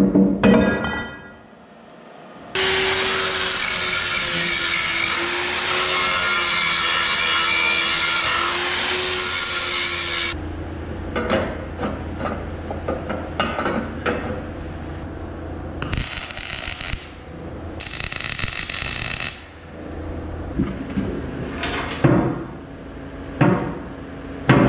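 Metalworking on a steel excavator bucket. A power tool cuts into the bucket's round steel tube for about eight seconds, with a steady wavering whine. A lower steady hum follows with two short bursts of hiss, and there are sharp metal knocks and clanks near the start and near the end.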